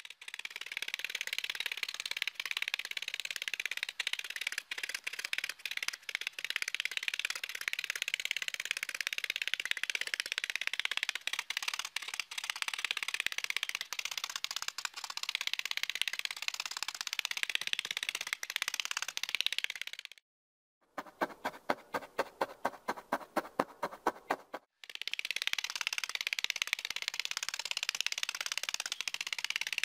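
Multi-needle felting tool with a wooden handle stabbing rapidly and repeatedly into wool roving on canvas: a fast, continuous scratchy crunching. About two-thirds of the way through it breaks off briefly, then comes back as evenly spaced strokes, about six a second, before the dense crunching resumes.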